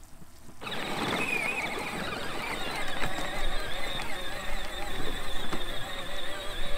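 Electric drive motors and gearboxes of a battery-powered ride-on toy tractor whining as it sets off about half a second in and drives on, the whine wavering with its speed over a rumble of the wheels.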